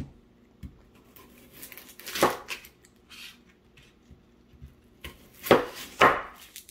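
Chef's knife cutting through an onion and knocking on a thin plastic cutting board: a few sharp, irregular knocks of the blade on the board, the loudest near the end.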